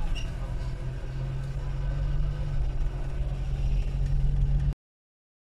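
Cabin noise inside a moving Toyota: a steady low engine and road rumble, cutting off suddenly near the end.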